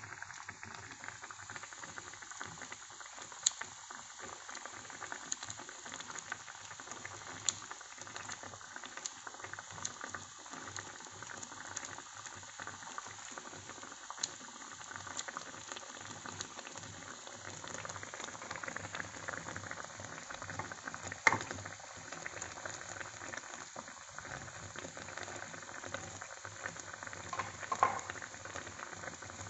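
Thick curry sauce with tuna roe bubbling at a steady simmer in a pan, a continuous crackle of small pops, with a few louder sharp clicks here and there.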